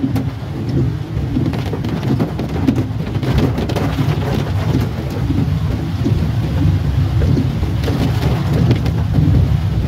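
Heavy rain falling on a car's roof and windscreen, heard from inside the cabin: a steady, dense patter over a low rumble.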